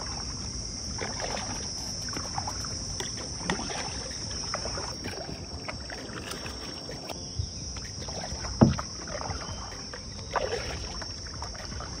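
Kayak paddling: paddle blades dipping and splashing in the water as the kayak glides, with one louder knock about two-thirds of the way in. A steady high whine sits behind it.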